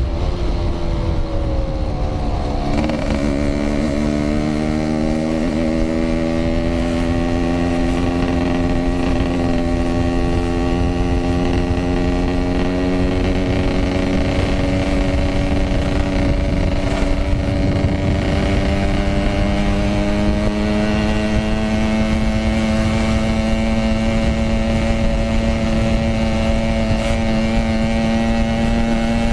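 Yamaha RX-King 135cc two-stroke single-cylinder motorcycle engine under way, its pitch dropping briefly about two seconds in, then rising slowly and steadily as the bike gathers speed, over a low wind rumble.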